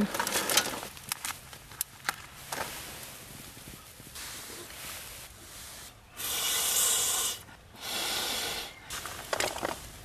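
Two long breaths blown through a metal blow pipe into a small wood stove's firebox to revive the fire, each a steady rushing hiss, the first about six seconds in and the second just after. A few light knocks from handling sticks and the stove come before them.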